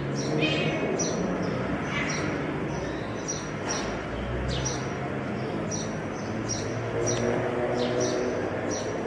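Small birds chirping: short, high chirps repeating about once or twice a second.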